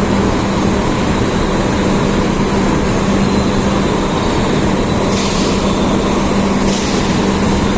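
Loud, steady roar at a blast furnace taphole being opened, with a steady low hum underneath and two short hisses about five and seven seconds in.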